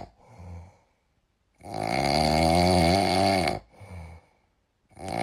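Snoring sound effect: a long, loud snore, then a short, soft breath out, starting over about three and a half seconds later.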